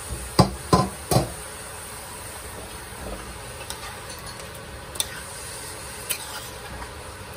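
Metal spoon knocking sharply against a large metal cooking pot three times in quick succession, then stirring rice and browned chicken in the pot, with a few lighter clinks of the spoon on the pot's side.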